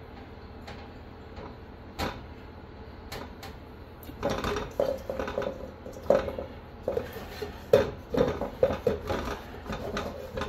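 Stainless steel mixing bowl clanking and rattling on a gas stove's grate as biscuit dough is scraped out of it by hand. There is one knock about two seconds in, then a quick run of ringing clanks from about four seconds on.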